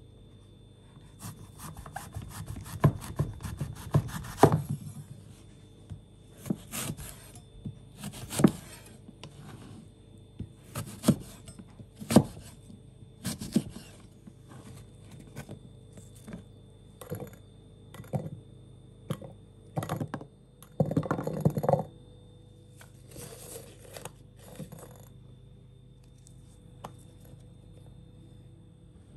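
Chef's knife cutting through a firm quince and knocking on a wooden cutting board: a run of crunching cuts in the first few seconds, then a series of separate chops and knocks, with a longer scraping crunch about 21 seconds in.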